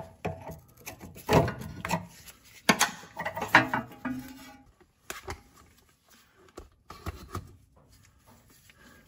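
Hand tools and car suspension parts being handled: irregular knocks, clanks and rubbing, with several sharp knocks in the first few seconds, then fainter scattered clicks.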